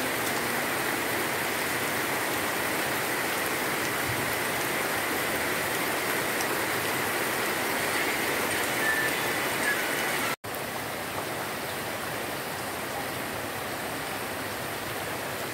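Steady rain falling on papaya leaves and garden foliage, an even hiss. About two-thirds of the way through it cuts out for an instant and resumes a little softer.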